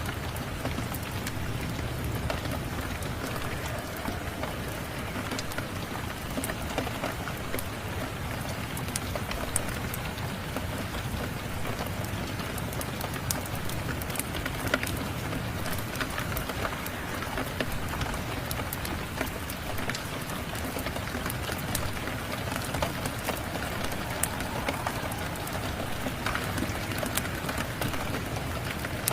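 Steady rain mixed with a crackling wood fire: a constant even hiss with many scattered sharp little pops and clicks.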